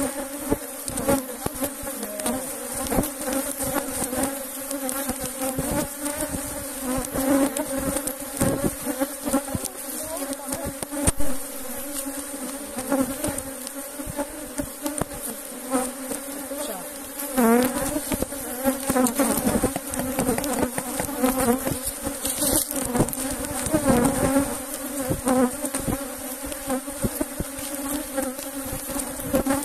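Honey bees swarming around an opened hive: a dense, steady hum of many bees, with single bees now and then passing close to the microphone, their pitch swooping up and down.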